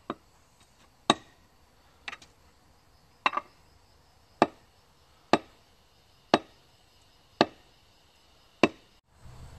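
A long-handled digging tool striking down into stony dirt nine times, about one sharp chop a second.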